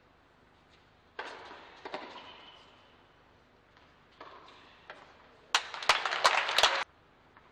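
Tennis ball struck by rackets in an indoor arena, each hit followed by a hall echo. Near the end comes a short, loud burst of crowd applause that cuts off suddenly.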